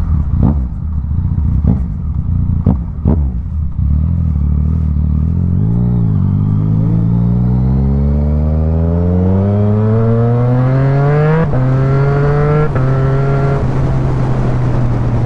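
Yamaha MT-09 three-cylinder engine with a full aftermarket exhaust, running at low revs with a few sharp cracks in the first three seconds. It then accelerates, the revs climbing steadily for several seconds, drops twice in quick succession at two fast upshifts near the end, and settles into a steady pull.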